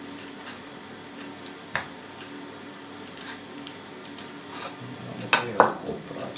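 Quiet handling of raw pork loin and cotton twine as the meat is tied. A few sharp clinks come about five and a half seconds in, as the ceramic plate is knocked and moved on the table.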